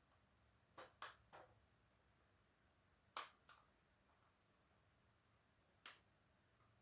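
About six short, sharp clicks and taps of small hard objects being handled, over near silence: three close together about a second in, two about three seconds in, and one near the end.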